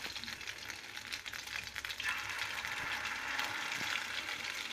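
Hot oil in a steel pan sizzling and crackling around spoonfuls of grated-potato-and-egg pakora batter being shallow-fried, growing louder about two seconds in as more batter goes into the oil.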